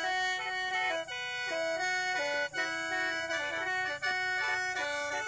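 Khaen, the Lao bamboo free-reed mouth organ, playing a quick melody in several notes at once over held drone notes, with short breaks about every second and a half.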